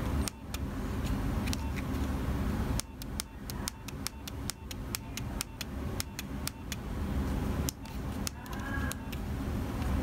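Nokia 3300b's navigation keys clicked repeatedly while scrolling through the phone's menus: short sharp clicks, several a second, mostly from about three seconds in to near the end, over a steady low rumble.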